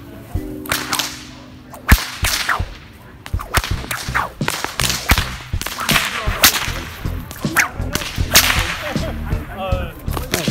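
Bullwhips cracking repeatedly: about a dozen sharp cracks at uneven intervals, some coming in quick pairs.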